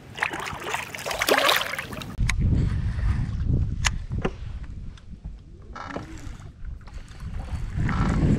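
A burst of splashing water, then wind rumbling on the microphone with a few sharp clicks scattered through it.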